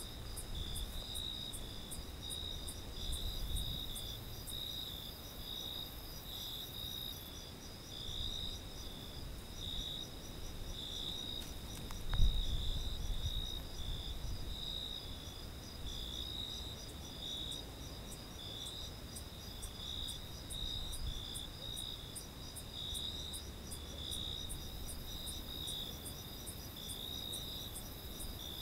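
Night insect chorus of crickets chirping: a steady, rhythmic high-pitched chirping, with a faster, higher regular ticking from another insect above it. A single low thump about twelve seconds in stands out over a faint low rumble.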